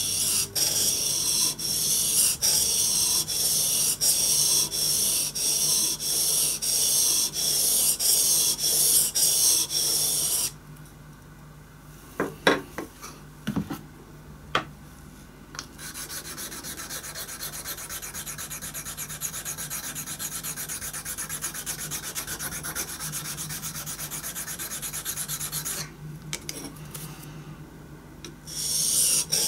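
Steel gouge rubbed back and forth on a wet whetstone, about two strokes a second. After about ten seconds the strokes stop, there are a few light knocks, then a small round slip stone is rubbed quickly and more quietly across the stone's face. Near the end the louder gouge strokes start again.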